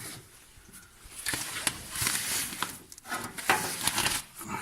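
Hand work on car engine parts: irregular clicks, small knocks and scraping or rustling as a cable is fitted into place, with denser scraping about two seconds in and again near the end.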